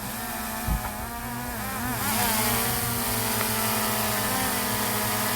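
Quadcopter drone hovering close as it is brought in to land. Its propeller whine wavers up and down in pitch, then about two seconds in it grows louder and steadier as the rotor wash hisses on the microphone. There is a dull bump under a second in.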